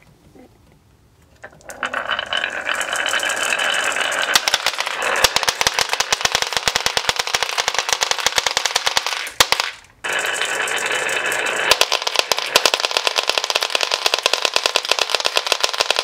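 Glass marbles rolling down a wooden serpentine marble-run track and clattering into a pile of other glass marbles: a dense, rapid stream of clicks that starts a moment in, breaks off briefly just before the tenth second, then starts again.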